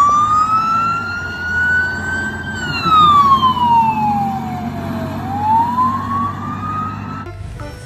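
Police car siren in a slow wail over a low steady rumble. It rises for a couple of seconds, falls for about as long, then rises again before cutting off suddenly near the end.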